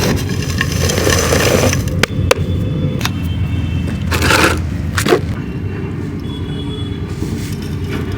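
Dried clay being crumbled: a dense crackling crunch, then a few sharp separate snaps and a short crunch, after which it goes quieter over a steady low background rumble.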